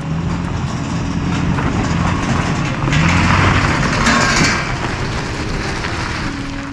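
Vehicle driving on a rough dirt road: steady engine drone under tyre and road rush, which swells loudest for about a second and a half around three seconds in, then eases.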